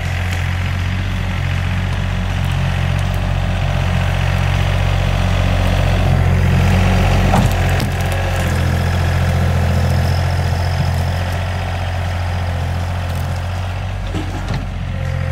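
John Deere tractor engine running at a steady speed, a deep, even drone, with a brief crack about seven seconds in.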